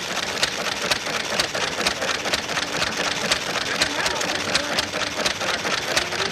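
Old hit-and-miss stationary engine running, with a steady, fast and uneven clatter of clicks from its works.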